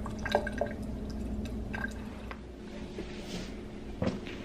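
Water dripping in scattered drops with small clicks, over a steady low hum.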